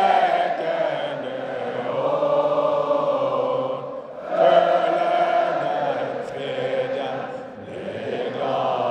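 Large stadium crowd of football supporters singing a chant together, many voices holding long sung phrases, with brief breaks between phrases about four seconds in and again near the end.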